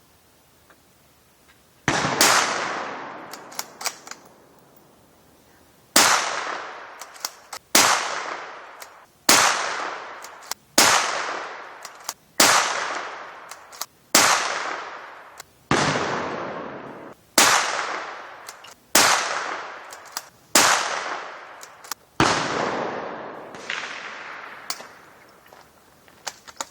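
Ruger American Ranch .223 bolt-action rifle firing subsonic cast-bullet handloads loaded with Trail Boss powder: twelve shots, the first about two seconds in and then one roughly every second and a half. Each shot is a sharp report with a long ringing decay, and a few light clicks fall between the first shots.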